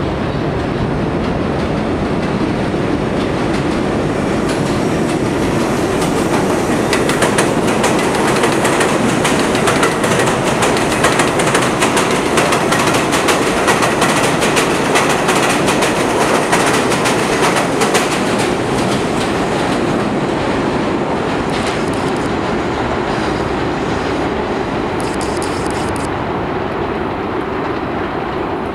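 A train of R42 subway cars passes at speed on elevated track without stopping: a loud steady rumble with a rapid clatter of wheels over rail joints. It builds as the train approaches, is loudest and most clattering in the middle as the cars rush by, then eases off as the train recedes.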